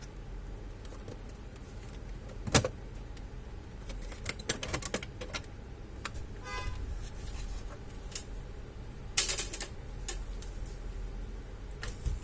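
Hands handling and working on an all-in-one desktop computer during disassembly: scattered clicks and taps, with a sharp knock about two and a half seconds in, a quick run of ticks about halfway through, and a brief scrape about nine seconds in.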